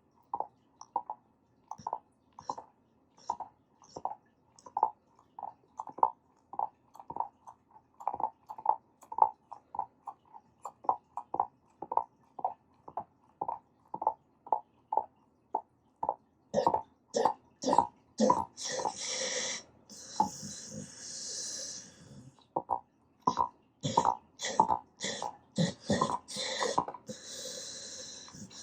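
A sleeping old dog making rapid, rhythmic smacking and clicking mouth sounds, about two or three a second, which the owner wonders may be teeth grinding, dream eating or suckling. In the last third the smacks grow denser and are mixed with longer breathy, snore-like noises.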